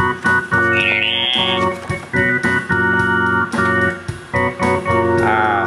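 Instrumental backing music led by sustained organ chords, with a short high sliding note about a second in.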